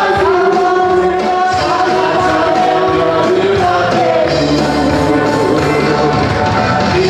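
Worship team of men and women singing a gospel song together into microphones, with long held notes over amplified instrumental accompaniment.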